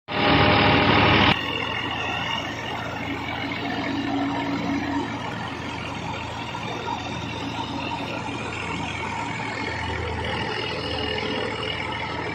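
Massey Ferguson tractor engine and the thresher it drives through its PTO shaft running steadily, a low engine hum under a whirring mechanical din. It opens with a much louder burst of noise lasting about a second that cuts off abruptly.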